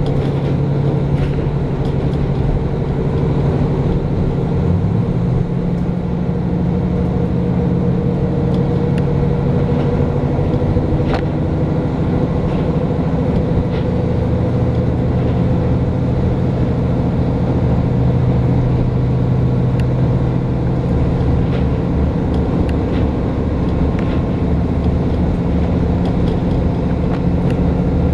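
Diesel railcar under way, heard from inside the passenger cabin: a steady engine hum over the continuous rumble of wheels on rail, with scattered faint clicks.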